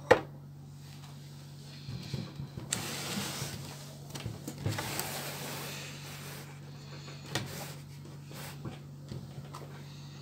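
Cardboard appliance box being handled: a sharp knock at the start, then a few seconds of scraping and rustling against the cardboard, followed by a few lighter knocks.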